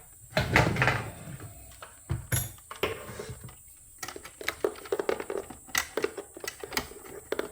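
Small clicks, taps and rustles of hands routing and tucking wiring inside an espresso machine's housing, with a quick run of light taps in the second half.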